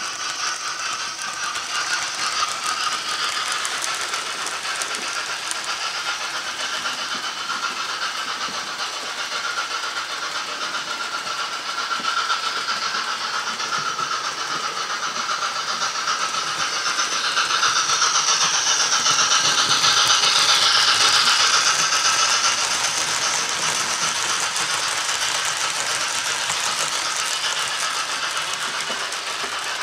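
Hornby A4 OO-gauge model locomotive running on model track, its built-in DCC sound decoder playing steam-engine sounds through its small speaker over the rattle of the wheels and coaches. The sound swells louder for a few seconds past the middle.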